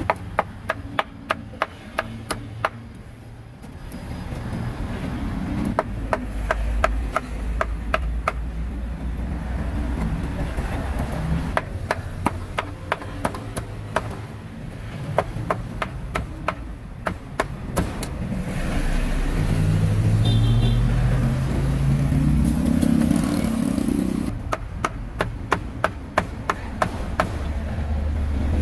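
Knife chopping grilled meat on a board in quick runs of about four strokes a second, with pauses between runs. Street traffic runs underneath, and a passing vehicle's engine rises in pitch around two-thirds of the way through.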